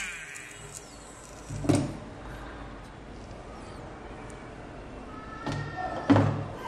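Two dull knocks, the first about a second and a half in and the second near the end, with a faint brief whine just before the second.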